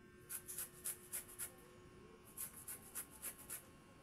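Peeled santol fruit rubbed against a hand grater: two runs of quick rasping strokes, about five a second, with a short pause in the middle.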